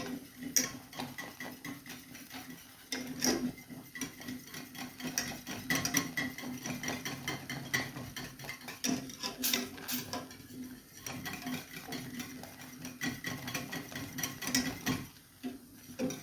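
A utensil stirring and scraping around a pot of thickening milk custard on the stove, with irregular small knocks and scrapes against the pot.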